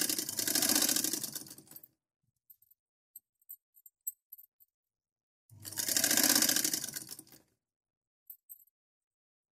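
Tailor's sewing machine stitching an ordinary straight seam through thick cloth in two short runs: the first stops about two seconds in, and the second starts about halfway through and lasts about two seconds. Faint clicks of the machine and cloth being handled fall between the runs.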